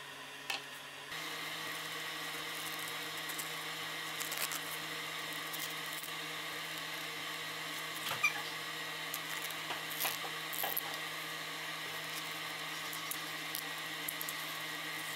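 Steady electrical or fan-like hum, which gets a little louder about a second in, with faint scattered clicks and rustles from a stork feather being pulled apart along its quill.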